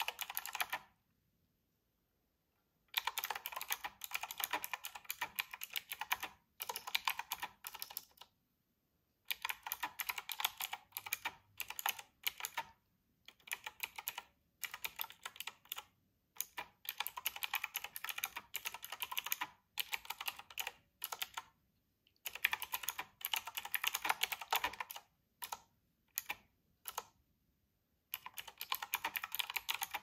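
Fast typing on a typewriter-style mechanical keyboard with round retro keycaps: quick clickety-clack keystrokes in bursts of a few seconds, broken by short pauses.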